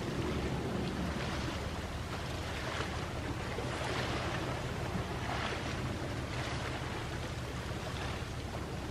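Small sea waves washing in over and over, each wash a soft swell of hiss every second or two, over a low steady rumble.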